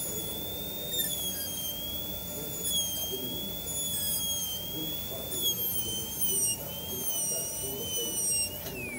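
High-speed dental air-turbine handpiece with a diamond bur whining as it cuts a typodont tooth for an abutment preparation, its high-pitched whine wavering slightly in pitch. Near the end it is released and winds down, the whine falling sharply in pitch.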